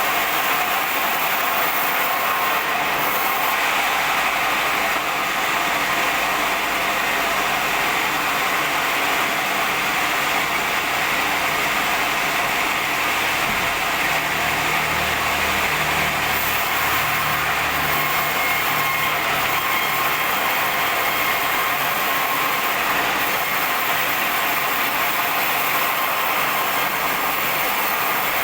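Sawmill band saw running steadily with a loud, constant machine noise, with a lower rumble added for a few seconds about halfway through.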